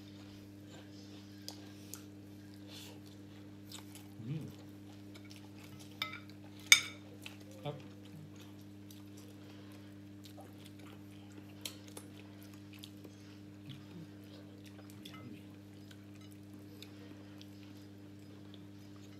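Eating at a table: scattered clicks and clinks of cutlery and dishes, with chewing, over a steady low hum. One sharp clink about seven seconds in is the loudest.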